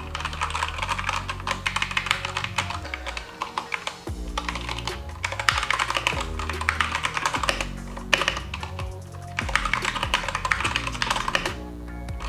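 Typing on a Keychron K2 V2 mechanical keyboard: a rapid run of key clicks and clacks, with a short pause about four seconds in, over background music.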